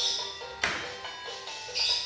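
Music with a quick run of short bright notes and a sharp percussive hit about half a second in.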